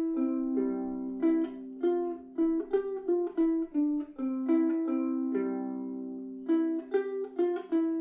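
Low-G ukulele playing a single-note melodic riff: a run of plucked notes one at a time, some short and some left to ring on. The lowest notes sit around the low G string.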